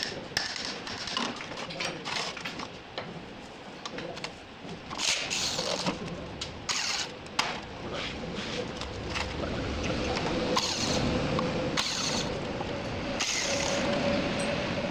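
Workshop clatter of metal tools: scattered clicks and knocks with a few short hissing bursts. About halfway through, a steady whining tone sets in and grows louder.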